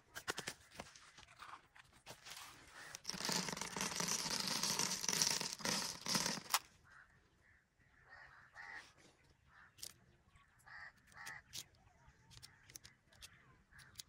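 Mixed birdseed poured from a plastic scoop and scattering onto a sheet of card, a rustling hiss lasting about three and a half seconds and ending in a sharp click. Afterwards faint scattered taps and rustles as the seed is handled.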